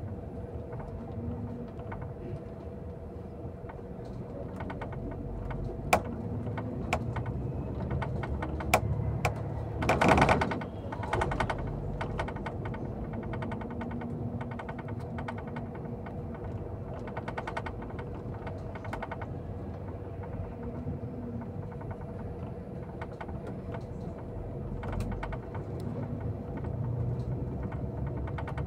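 Cabin of a moving vehicle: a steady engine and road hum under many small rattles and ticks from the interior, with a louder clatter about ten seconds in.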